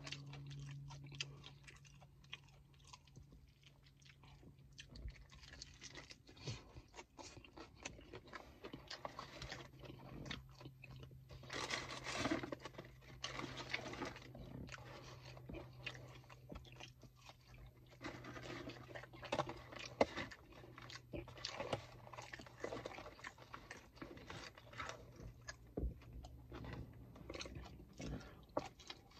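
Close-miked chewing and crunching of fried chicken, with a dense run of small crackling bites and mouth sounds, busiest about twelve seconds in. A low steady hum runs underneath and fades out near the end.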